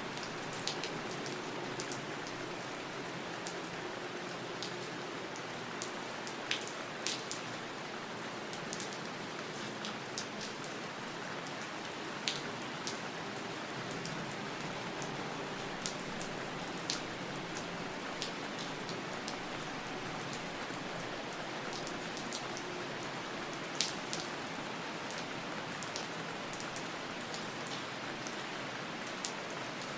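Steady rain falling, a continuous hiss with sharp individual drops ticking on a surface every second or so.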